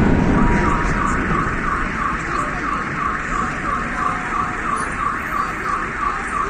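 Car alarm sounding a repeated warbling chirp, about three a second, set off by the fireworks' blasts. A low rumble from the last fireworks fades out in the first second.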